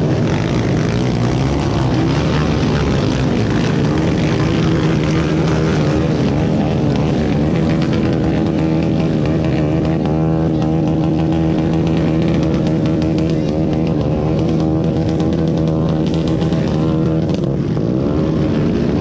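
Honda XRM single-cylinder four-stroke underbone motorcycle engines running and revving in the mud, over a steady hum, with music mixed in. The engine pitch wavers up and down about a third of the way in and again near the end.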